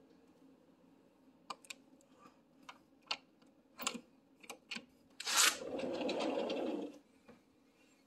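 Sliding glass patio door being unlatched and opened: a series of sharp clicks from the latch and handle, then about five seconds in a sudden rush as the door breaks free and slides along its track for about a second and a half.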